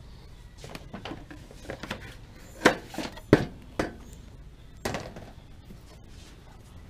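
Hard items knocking and clinking together as goods are picked up and handled, a few light clicks and then four sharper knocks in the middle, over faint background music.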